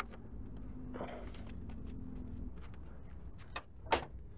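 A vehicle engine running with a low steady hum that stops about halfway through, then a few clicks and a sharp knock near the end.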